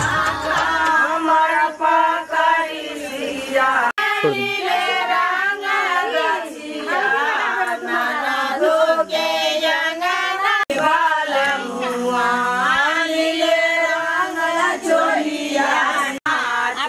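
A group of women singing a folk song together without instruments, several voices at once.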